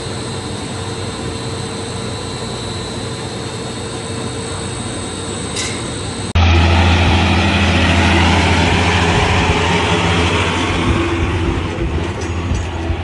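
A steady machine hum with a faint high whine, cut off suddenly about halfway by a louder, deep engine drone of a tractor pulling a large plough through soil.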